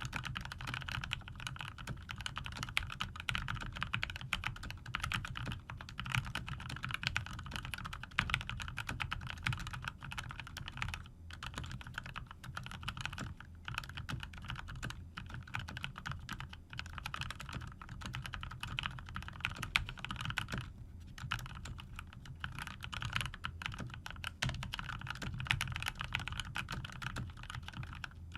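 Typing on a COX CK01 TKL mechanical keyboard with lubed GMTX red linear switches and PBT keycaps. The keystrokes come in a fast, continuous stream, with a few short pauses.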